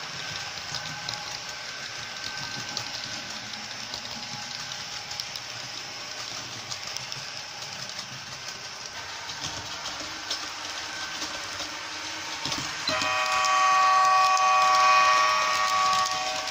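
Model railway train running with a steady rolling noise and light clicking of wheels on the track. About thirteen seconds in, the model ZSSK class 381 electric locomotive's sound decoder sounds its horn, a steady multi-note chord held for about three and a half seconds.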